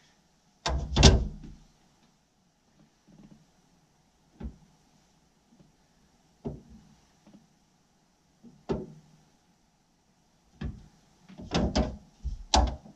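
Scattered knocks and clunks of a spirit level and a metal parcel tray being handled against each other, the loudest about a second in and a quick cluster near the end.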